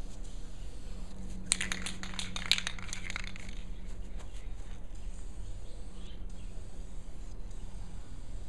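Aerosol spray can being shaken: a quick run of sharp metallic rattles from the mixing ball, starting about a second and a half in and lasting under two seconds.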